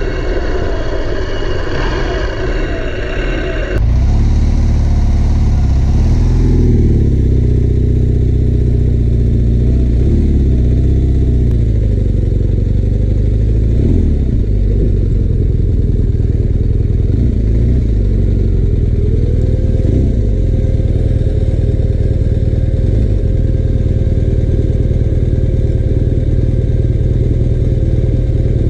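Escort motorcycle engine running on the road, its pitch rising and falling with the throttle over a heavy low rumble. The sound changes abruptly about four seconds in, and a steady whine joins about two-thirds of the way through.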